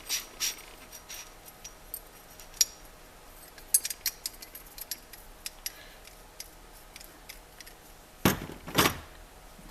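Small steel gearbox parts, synchronizer rings and gears, clicking and clinking as they are handled on the bench, with two louder rubbing noises near the end.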